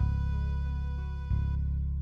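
Instrumental backing track of a Korean gospel song: sustained chords over a strong bass, with a new chord coming in at the start and another about a second and a half in.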